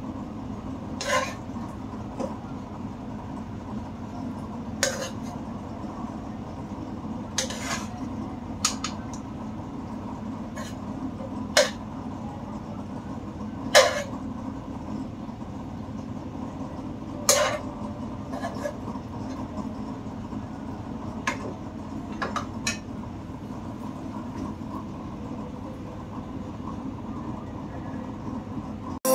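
Metal utensils clinking against pots and dishes: about ten sharp clinks a second or a few seconds apart, over a steady low hum.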